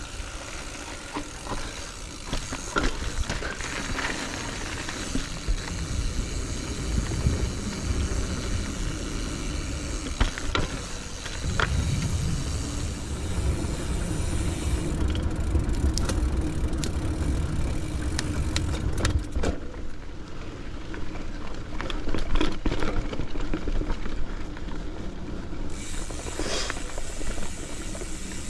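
Mountain bike ridden over dirt singletrack: tyres running on the trail with many small clicks and rattles from the bike. Low wind rumble on the microphone, heaviest through the middle, eases a few seconds before the end.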